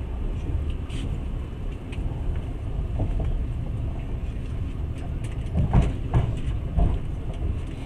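Passenger train running along the rails, heard from inside the carriage as a steady low rumble. A few wheel knocks come about six seconds in.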